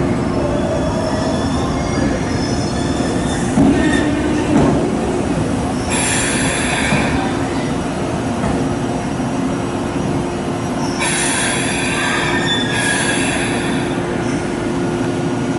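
JR 383 series electric limited express train rolling slowly into the platform as it arrives, with a steady rumble and hum. Bursts of high-pitched wheel and brake squeal come about six seconds in and twice more near the end as it slows.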